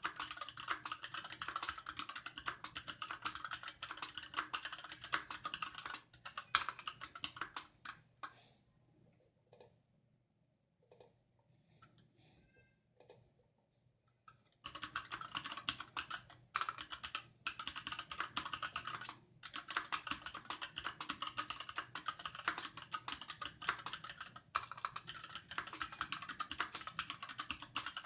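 Fast typing on a Varmilo VA68M aluminium-cased mechanical keyboard with Gateron Red linear switches and PBT keycaps, keystrokes coming in a quick, continuous stream. About eight seconds in it thins to a few scattered key presses for several seconds, then the fast typing resumes.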